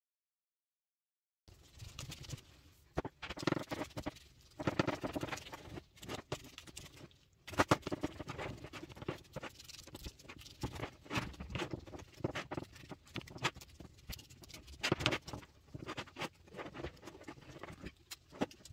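Soft shortcrust dough being pressed and patted by gloved hands into a glass baking dish: irregular soft pats, rustles and light taps against the glass, starting about a second and a half in.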